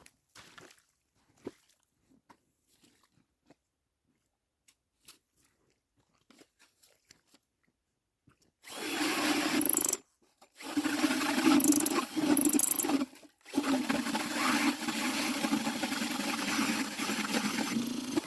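Power ice auger drilling through lake ice, running in three stretches with two short stops. It starts after several seconds of near silence broken only by a few faint clicks.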